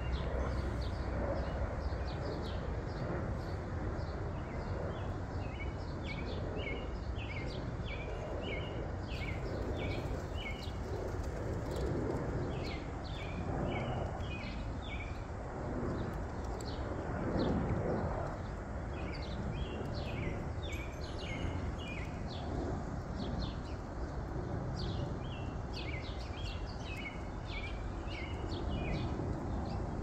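Small birds chirping in short, quick high notes throughout, with low pigeon cooing mostly around the middle, over a steady low outdoor background noise.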